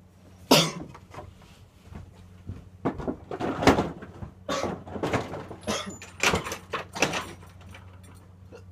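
A door being closed: a sharp bang about half a second in, then a run of knocks and rattles.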